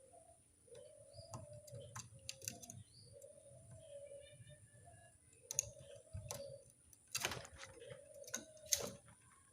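A burung puter (ringneck dove) cooing, used as a lure call for wild doves: a run of short, low coos, each about half a second long, repeating roughly every second. Sharp clicks and knocks are scattered among the coos, and the loudest come in the last few seconds.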